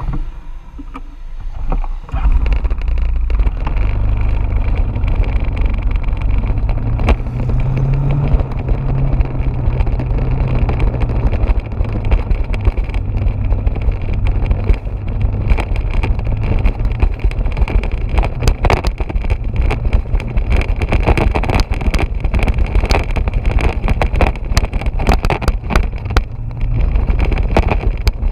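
Motorbike engine running while riding, with heavy wind buffeting on the microphone; it gets louder about two seconds in.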